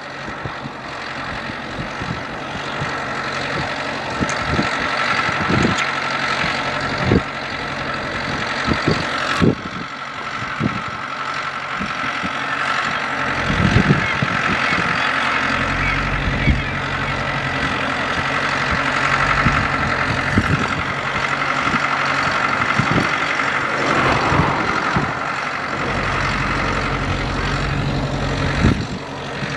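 Ford 7610 tractor's four-cylinder diesel engine running steadily under ploughing load, growing louder over the first few seconds. Wind buffets the microphone with low thumps throughout.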